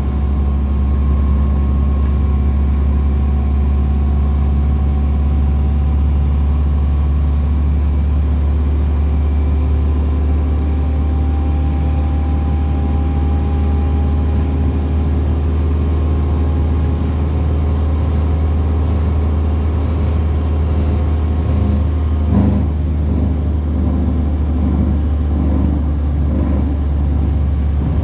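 Bus running along the road, a steady low engine and drivetrain drone with whining tones above it that drift slightly in pitch. A short burst of rapid rattling comes about twenty-two seconds in. These are the unusual noises the bus is known for making.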